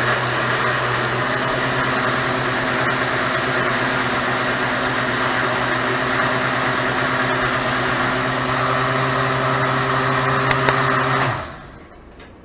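Blender motor running steadily, blending a banana and peanut butter protein shake, then switched off about eleven seconds in and quickly winding down.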